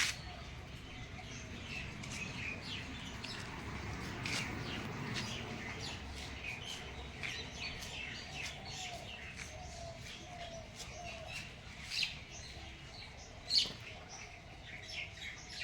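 Small birds chirping in short, irregular notes over a low steady background rumble, with two sharp taps in the last few seconds.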